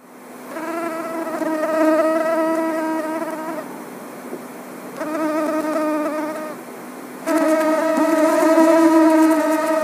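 Mosquito's high-pitched whining buzz from its wingbeat, coming in three stretches that swell and fade, with short quieter gaps between them.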